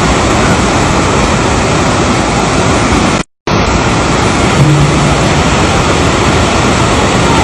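Loud, steady rush of a flooded river in spate pouring past a bridge, its flow swollen by water released through opened dam gates. The sound cuts out completely for a moment near the middle.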